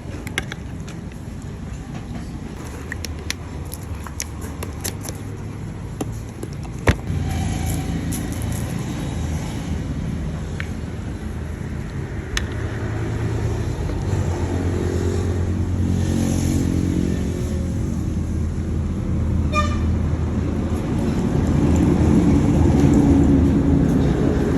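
Steady low rumble of road traffic, with scattered sharp clicks and one sharp knock about seven seconds in. It grows louder near the end.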